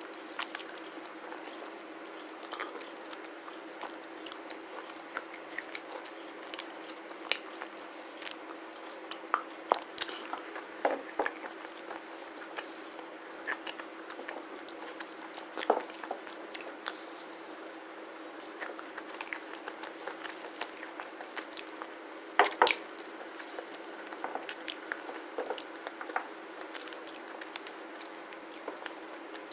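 Someone biting and chewing pieces of black slate close to the microphone: wet crunching, with scattered crisp cracks and the sharpest bites about ten, sixteen and twenty-two seconds in. A steady low hum runs underneath.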